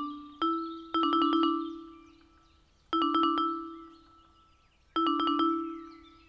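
Background music of mallet-percussion notes: quick runs of struck notes about every two seconds, each ringing and fading out. Faint bird chirps sound underneath.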